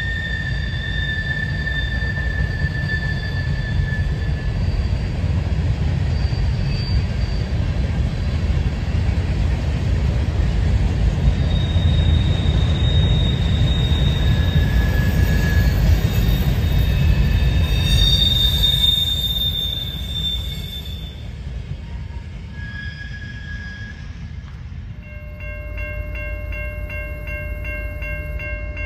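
Freight cars rolling past with a steady low rumble and high, drawn-out wheel squeal, the rumble dropping off about two-thirds of the way through. About 25 seconds in, an electronic railway crossing bell starts ringing with steady rapid dings.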